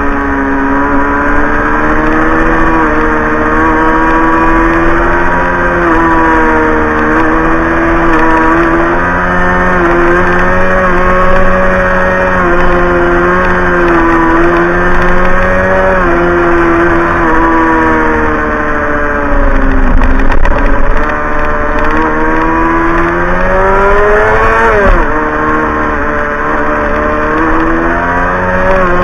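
Sport bike engine at road speed, heard from a camera mounted on the bike, its pitch rising and falling with the throttle through the bends. About two thirds of the way through the note sags, then climbs steeply and drops abruptly, with wind rushing over the microphone throughout.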